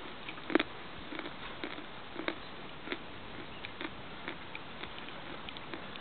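A person chewing food close to the microphone: irregular soft mouth clicks and smacks, about two or three a second, the loudest just over half a second in.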